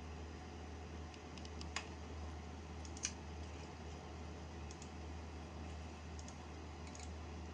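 Computer mouse clicking a few times, with two sharper clicks about two and three seconds in and fainter ones later, over a steady low hum.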